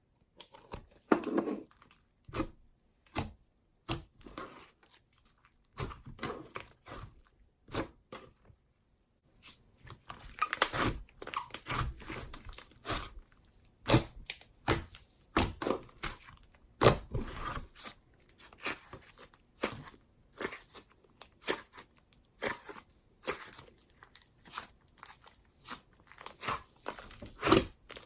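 Soft clay slime being squished, stretched and poked by hand, giving irregular sticky clicks and pops, with a short quiet pause about a third of the way in.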